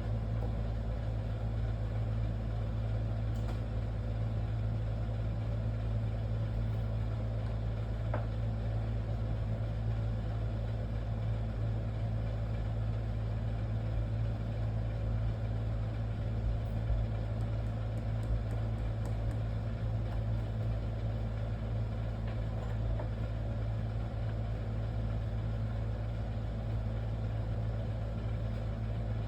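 Steady low mechanical hum at an even level, with a few faint ticks.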